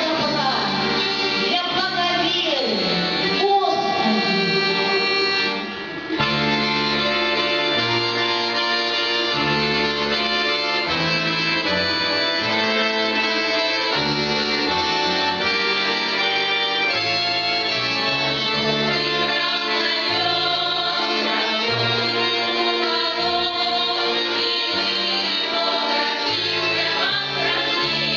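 A Russian folk choir singing a song with instrumental accompaniment over a stepping bass line. The music dips briefly about six seconds in, then continues with full sustained chords.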